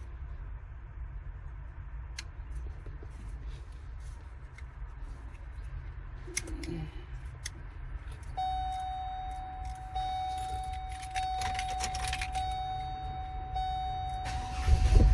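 Ignition key and switch clicking and keys jangling in a GMC Envoy XL's steering column, then from about eight seconds in a steady electronic warning tone, with a loud low rumble near the end.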